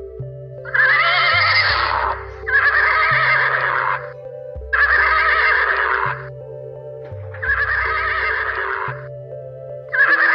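A horse whinny sound effect, repeated about five times in a regular pattern. Each whinny lasts about a second and has a wavering pitch. Background music with held tones and a low bass line plays under it.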